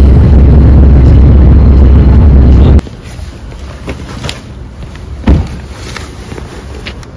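Loud low rumble of a moving car's wind and road noise, cutting off abruptly about three seconds in. Then quieter outdoor sound of a backpack being handled and put on beside a parked car, with small clicks and one sharp thump about five seconds in.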